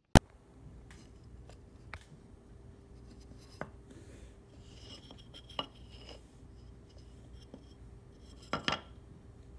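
A sharp click just after the start, then scattered small wooden knocks and clicks over a faint steady hum, with a cluster of louder knocks near the end as a wooden stick is laid down on a wooden floor.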